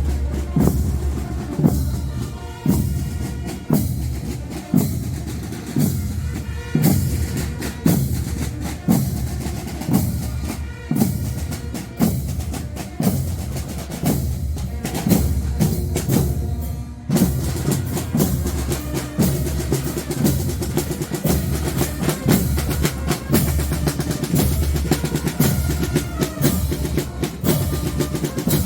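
Fanfare marching band playing: a steady bass-drum beat about once a second with snare drums and rolls, and pitched melody instruments over the drums. The band drops out briefly about 17 seconds in, then comes back with a busier drum pattern.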